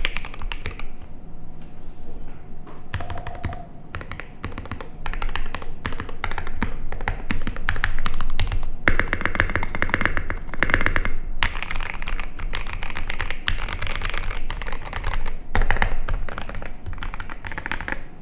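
Continuous fast typing on a MODE 80 mechanical keyboard with lubed Durock EV-01 linear switches, aluminium plate and KAT-profile keycaps: a muted clack on each keystroke, solid rather than hollow. It eases off a few seconds in, then comes in faster, louder runs past the middle.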